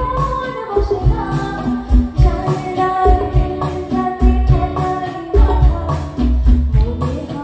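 Live performance of a Bengali song: singing over harmonium accompaniment, with a steady drum beat.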